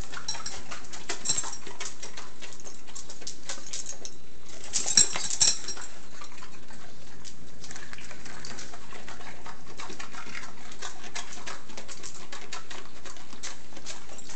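A Labrador chewing a Brussels sprout: a run of crisp crunching clicks that is loudest about five seconds in.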